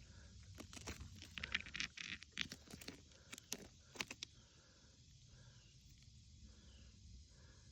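Rocks and gravelly dirt crunching and clicking in a quick cluster of scrapes and knocks during the first half. After that only a faint chirp repeats steadily over a low outdoor rumble.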